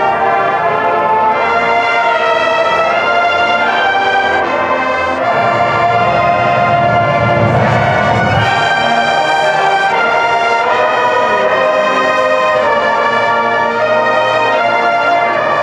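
Massed high school marching bands playing together, brass-led, with held chords and a swell in the low brass and drums about halfway through.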